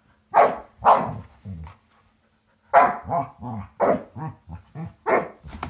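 A dog barking in short bursts: two or three barks, a pause of about a second, then a quicker run of barks, excited play barking during a game of putting toys in a box.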